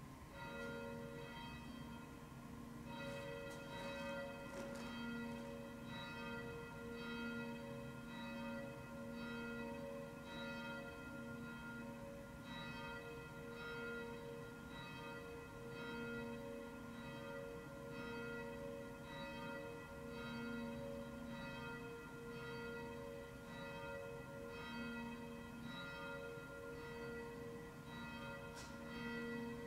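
Church bell tolling, its repeated strokes running into one another in a steady ringing that continues throughout. It is tolled for the dead whose names have just been read.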